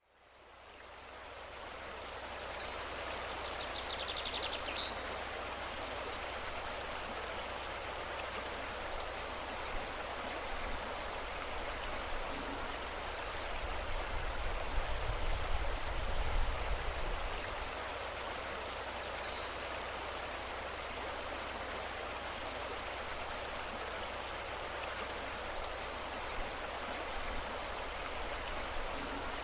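Shallow woodland stream running over its bed, a steady rush of water fading in over the first couple of seconds.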